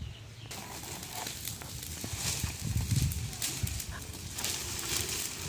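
Dry brush fire burning with a steady hiss and sharp crackles, coming in suddenly about half a second in, over low knocks and thumps.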